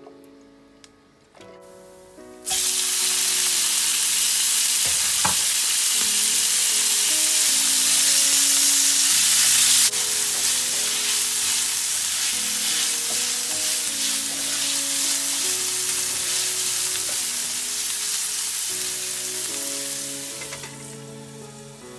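Pork rib pieces frying in hot oil in a skillet as they are stir-fried: a loud, dense sizzle that starts abruptly about two and a half seconds in and eases off near the end. Soft background music with plain sustained notes plays underneath.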